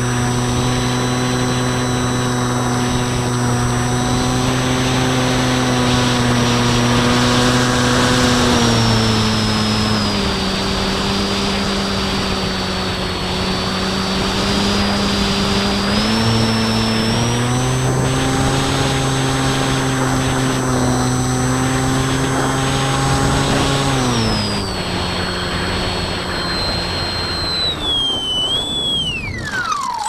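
Radio-controlled float plane's motor and propeller running with a steady whine over wind rush, throttled back about a third of the way in, opened up again about halfway, eased back once more later, then spinning down with a sharply falling whine near the end as the plane settles on the water.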